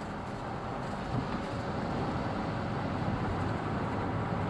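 Steady road noise heard from inside a moving car: tyres on the road and the engine running at cruising speed.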